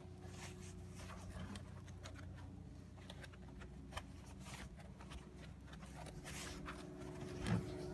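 Faint rustling and rubbing of twisted rope against rubber gloves as a small line is wrapped around a larger line to tie a rolling hitch, with a few light clicks and one brief bump near the end.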